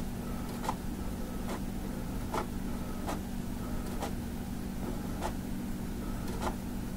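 Desktop printer running through a print job: a steady hum with a sharp click a little less than once a second.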